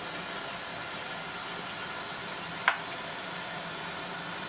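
Steady hiss of a pot of tomato and yogurt masala cooking under a glass lid on a gas stove at full flame, with one sharp click a little past halfway.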